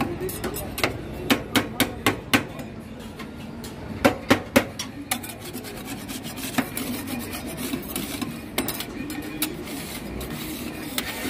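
Steel spatulas chopping and scraping on the frozen steel plate of a rolled ice cream counter. Sharp metal clinks come in quick runs: several in the first couple of seconds and three more about four seconds in. After that come lighter, faster taps with rasping scrapes as the mix is spread across the cold plate.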